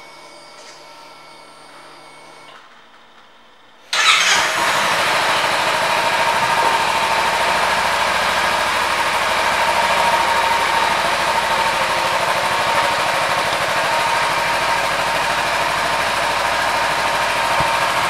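2016 Kawasaki Ninja 300's parallel-twin engine starting up about four seconds in, then idling steadily.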